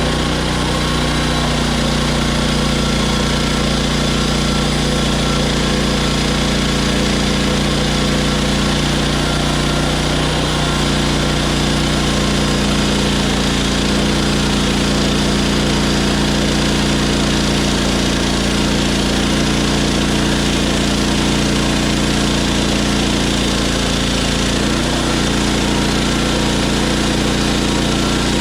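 Hudson HFE30 portable band sawmill running steadily: its small gas engine and band blade, with the pitch shifting slightly twice.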